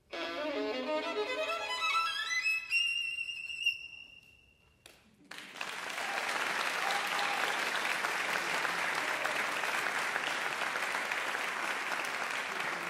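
Solo violin plays a quick rising run of notes up to a high held note that fades away. After a moment of near quiet, the audience breaks into steady applause.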